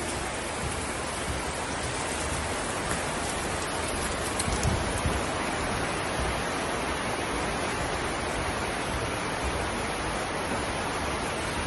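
Steady, loud rushing noise spread evenly across all pitches, with no tones or rhythm.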